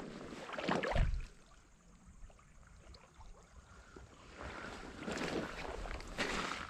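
River water sloshing and splashing, in two spells: one about a second in with a low thump, and a longer one near the end.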